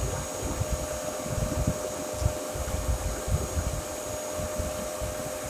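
Dyson DC33 Animal bagless upright vacuum cleaner running steadily, a whine over rushing air, with irregular low bumps throughout.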